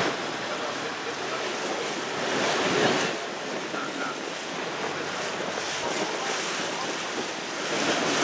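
Water rushing and splashing along the hull of a moving river shuttle boat, with wind buffeting the microphone, a little louder about three seconds in.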